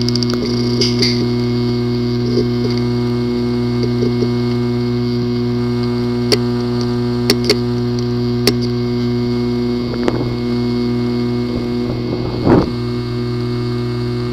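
A failing hard drive clicking irregularly over a steady hum, with sharp single clicks every second or two and a louder rattle near the end. The clicking is typical of a physically damaged disk assembly.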